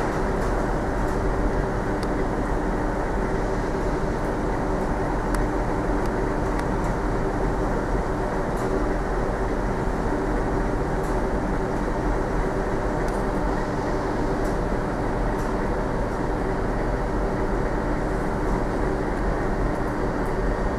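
Passenger train pulling out of the station, its coaches rolling away on the rails, over a steady low rumble and hum that holds level throughout.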